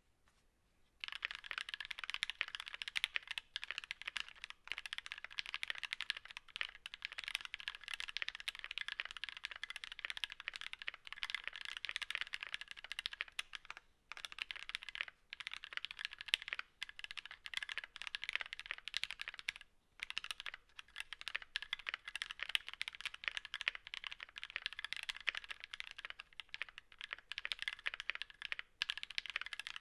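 Continuous typing on a mechanical keyboard with Gateron Ink Black v2 linear switches, lubed with Krytox 205g0 and filmed, in an aluminium Tofu60 case with a brass plate. A dense run of keystroke clacks starts about a second in, broken by brief pauses.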